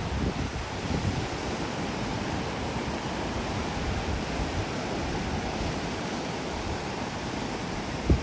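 Waves of a calm sea washing steadily onto the beach, with a low rumble of wind on the microphone.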